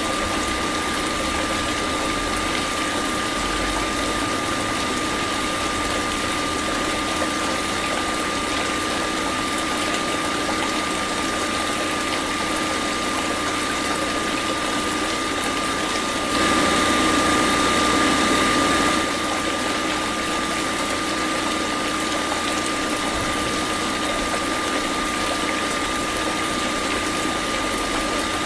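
Small battery-powered submersible water pump of a model borewell running steadily with a high motor whine as it pumps water. It gets louder for a couple of seconds a little past the middle.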